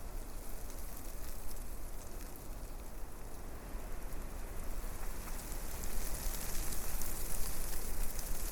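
Wind blowing through forest trees, a steady rushing hiss of leaves that swells into a stronger gust in the second half.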